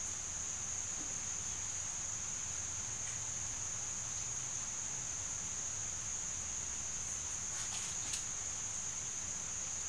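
A steady, high-pitched, insect-like trill or whine runs throughout, with a few faint soft ticks about eight seconds in.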